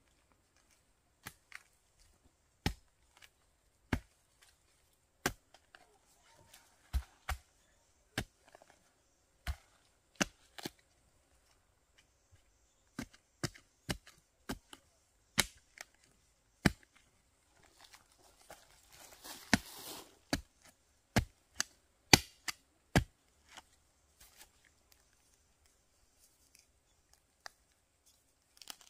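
A short-handled digging tool chopping into soil around a bamboo shoot: sharp single strikes about one a second, unevenly spaced. Around two-thirds of the way through, loose earth and dry leaves scrape for a couple of seconds, and the strikes stop a few seconds before the end.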